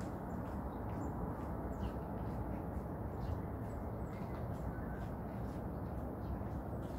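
Steady low outdoor hum of the city, with faint short chirps of small birds scattered through.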